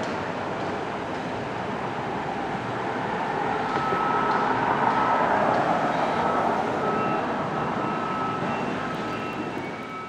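Distant engine noise that swells to a peak about halfway through and then eases off. A thin, high, steady tone sounds on and off over it in the second half.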